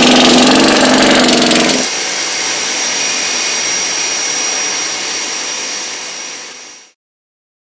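BMW R nineT 1170 cc air/oil-cooled boxer twin running, then cut off just under two seconds in. A steady hiss with a thin high whine is left behind, and it fades out to silence.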